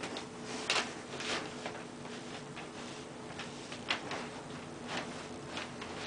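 Handling noises as a trim channel is worked along the edge of a pinball backglass: a scattering of short clicks, taps and scrapes, the sharpest about a second in and near four seconds, over a steady low hum.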